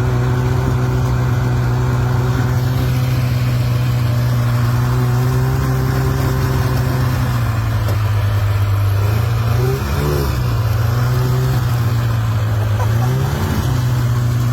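Snowmobile engine idling steadily. Its pitch settles a little lower about halfway through, and it is briefly blipped higher twice, about two-thirds in and near the end.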